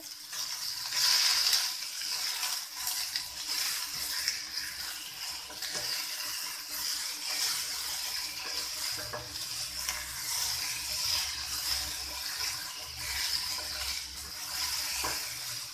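Shredded cabbage and potato frying dry in oil in a non-stick kadhai: a steady sizzle, with a spatula stirring and scraping through the vegetables against the pan.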